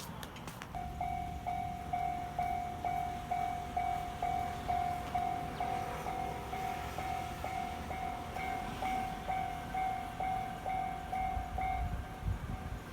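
Japanese railway level-crossing alarm ringing: an electronic ding repeating a little over twice a second, starting about a second in. A train rumbles underneath, growing near the end.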